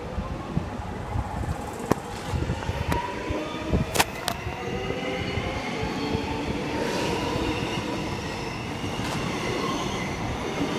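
Melbourne Metro X'Trapolis electric train accelerating away from the platform, its traction motors whining in several tones that rise slowly in pitch. Sharp clicks from the wheels over the rail come a few times in the first half, the loudest pair about four seconds in.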